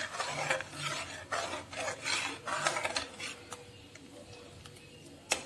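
A steel slotted spoon scrapes around a steel kadai while stirring milk that has boiled down and thickened, a run of rasping strokes about half a second apart that fades after three seconds. One sharp knock comes near the end.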